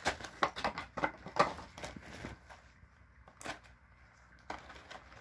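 Small boxes and their packaging being handled and opened by hand: a quick run of clicks and rustles for the first couple of seconds, then quieter with a single click, and more handling near the end.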